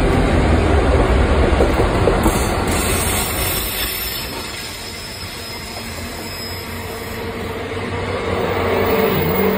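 Diesel freight locomotives rumbling past at the start, then a long train of wagons rolling by with wheel noise and clatter. Near the end a thin steady squeal from the wheels on the curve grows louder.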